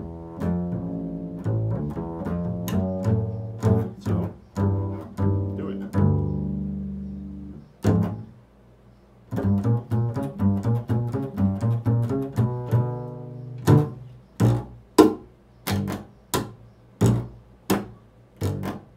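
Upright double bass played pizzicato: a run of plucked low notes ringing into one another, a pause about eight seconds in, then more ringing notes giving way to a closing string of separate short, sharp plucks about two a second.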